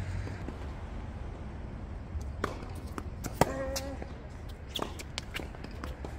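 Tennis rally on a hard court: sharp racket-on-ball hits and ball bounces about a second apart, the loudest about three and a half seconds in and followed by a short ringing tone, over a steady low hum.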